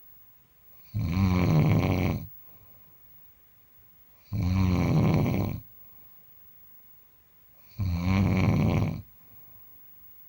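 A person snoring: three long, loud snores about three seconds apart, with near silence between them.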